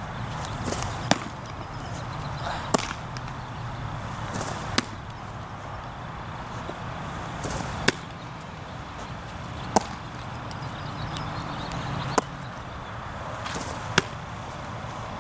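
Baseballs popping into a leather catcher's mitt, seven sharp pops about every two seconds. Several are preceded by a brief high hiss, over a steady low hum.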